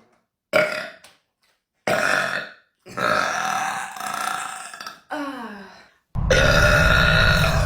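A young woman burping loudly, about five separate belches in quick succession. The longest starts about six seconds in, with a heavy low rumble, and is still going at the end.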